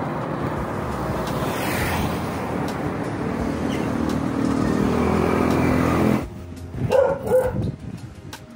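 A motor vehicle's engine running steadily close by, cutting off abruptly about six seconds in; then a dog barks twice.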